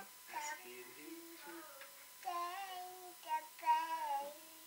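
A toddler boy singing in several short phrases with brief gaps, his notes held and bending, without clear words.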